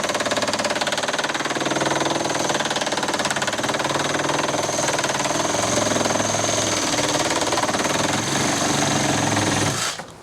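Cordless reciprocating saw cutting under load with heavy, rapid vibration, the blade stroking steadily until it stops about ten seconds in. The saw vibrates like buggery, enough to shake the workpiece clamp loose.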